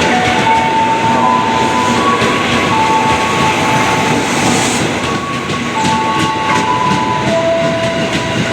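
A train running on the rails: steady rumble of wheels with clacks over the rail joints, and held whining tones that shift pitch in steps every second or so.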